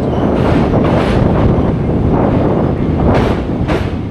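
Indian express train running at speed, heard from the carriage: a dense rumble of wheels on rails with wind buffeting the microphone. Two sharp knocks come a little after three seconds in.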